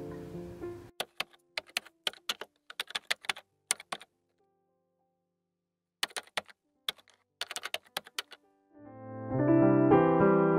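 Music fades out, then two runs of quick, irregular keyboard-typing clicks separated by a couple of seconds of silence. Piano music comes in near the end.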